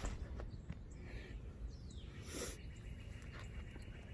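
Faint bird chirps, with a couple of short falling whistles, and a few soft clicks.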